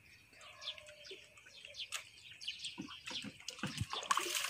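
Small birds chirping over and over in the background, with a louder slosh and splash of muddy water about four seconds in as a mud-filled fishing net is lifted out of the water.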